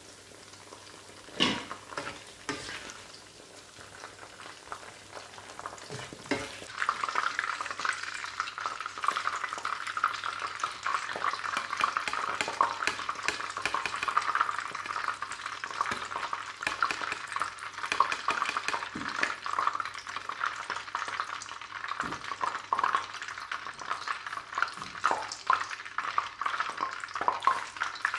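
Food frying in oil in a pan while a utensil stirs it. A few sharp knocks come in the first seconds, and the sizzling grows louder and denser about seven seconds in, with scattered clicks of the spatula.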